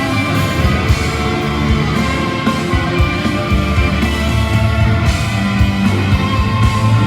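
A live rock band playing, with electric guitars sustaining notes over a steady drum beat.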